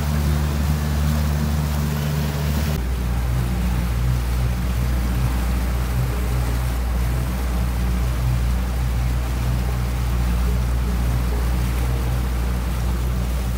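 60 hp outboard motor running steadily at cruising speed, pushing a small boat along, with the rush of wake and water under the hull. The engine note shifts slightly about three seconds in.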